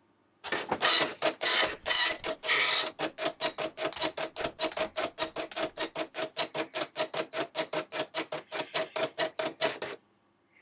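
Epson FX-80 dot-matrix printer printing a test of its type styles. A few longer bursts from the print head are followed by a fast, even run of short strokes, about six a second, which stops suddenly near the end.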